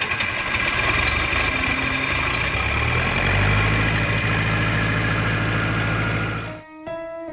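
Farm tractor engine idling just after starting, heard from below its upright exhaust stack; the low engine note grows stronger about three seconds in. Near the end it cuts off abruptly and music starts.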